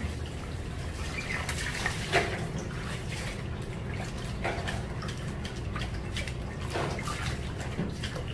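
Kitchen work sounds: water sloshing and dripping with a few short clatters, the loudest about two seconds in, over a steady low hum.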